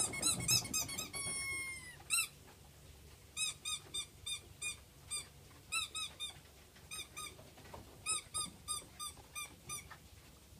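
German Shepherd puppies whimpering: short high-pitched squeaks in quick runs of two to five, with one longer falling whine about a second in.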